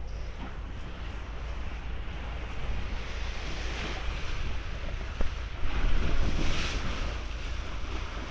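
Wind buffeting the microphone over the rush of sea water pushed aside by a moving ship's bow, with a steady low rumble underneath. The wash swells louder about six seconds in, and there is one sharp knock about five seconds in.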